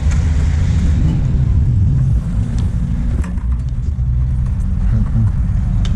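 Steady low rumble of a BMX bike rolling over concrete, heard through a head-mounted camera with wind on the microphone, with a few sharp clicks and knocks, around two and a half and three seconds in and again near the end.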